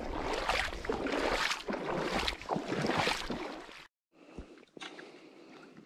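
Shallow seawater splashing and sloshing in irregular strokes as a person wades, cutting off suddenly about four seconds in, after which only a much fainter water sound remains.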